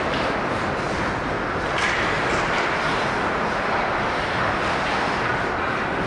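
Ice hockey play on an indoor rink: a steady wash of noise from skates scraping the ice, with a few light clacks of sticks and skates.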